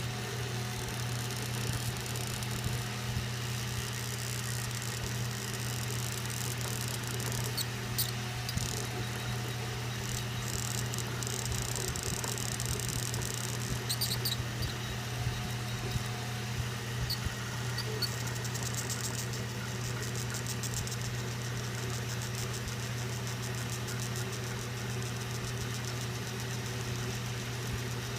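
A running CTC machine hums steadily, with intermittent high-pitched squeaks coming in short clusters over the hum.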